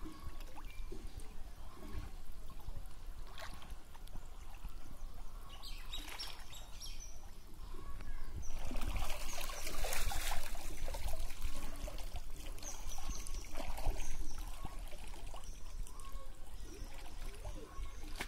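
Pond water sloshing and splashing as a man wades and gropes with his hands under the surface, with a louder spell of splashing around the middle.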